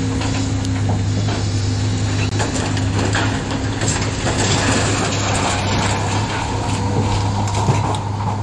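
Scrap metal clanking and scraping as an excavator's lift magnet pulls a load out of a trailer, over a steady engine drone.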